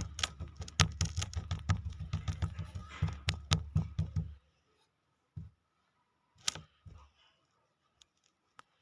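Kinetic sand being worked by hand: a quick run of soft taps and crunches, about four or five a second, for roughly four seconds, then three or four single taps.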